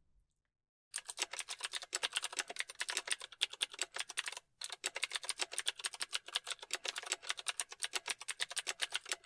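Typing sound effect: a fast, even run of keystroke clicks, about six a second. It starts about a second in and breaks off briefly about halfway through before carrying on.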